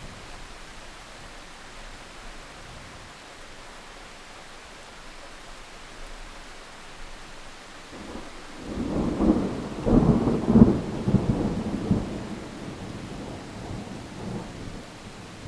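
Steady rain with a roll of thunder that starts a little past halfway, crackles loudest for a few seconds, then rumbles away.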